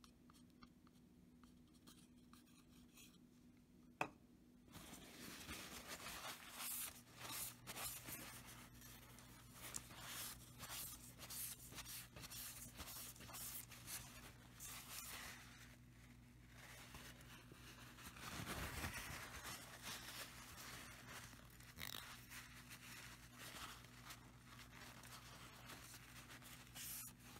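Faint, irregular rustling and rubbing of a paper towel wiping a glue-coated wooden knife handle. There is a single sharp click about four seconds in and a low steady hum underneath.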